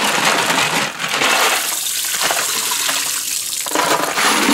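Tap water running and splashing into a utility sink as a container of dirty soapy water is rinsed out and emptied down the drain.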